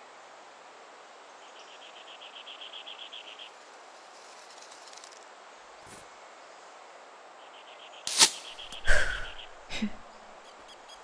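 Sound-designed snowy-forest ambience with a short, fast trill heard twice. About eight seconds in comes a sharp, loud snap and whoosh of a bow shot, followed by a couple of heavy thumps.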